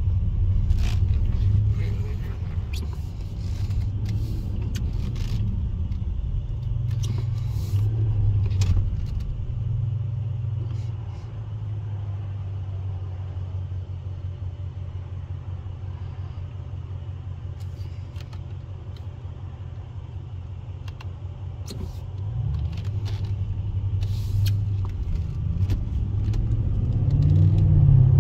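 Cabin sound of a 2017 Audi S8 under way: its twin-turbo V8 and the tyres give a steady low rumble that eases off for a while in the middle. Near the end the engine note rises as the car accelerates.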